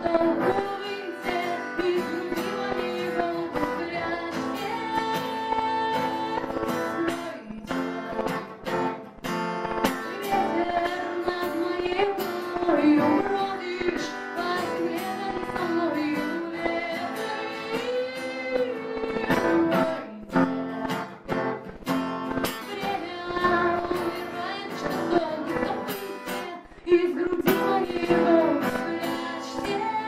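A woman singing a song while strumming an acoustic guitar.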